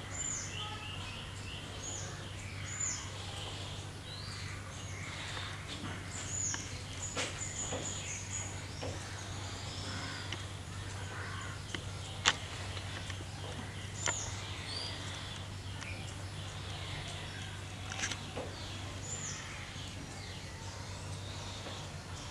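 Small birds chirping in short, high, falling calls over a steady low hum, with a few sharp taps of chalk striking a blackboard as lines are drawn; the loudest tap comes about halfway through.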